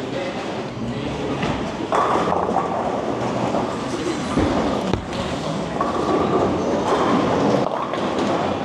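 Bowling balls rolling on wooden lanes, a steady rumble that swells about two seconds in. Low thuds about four and a half and five seconds in, as the ball is released onto the lane.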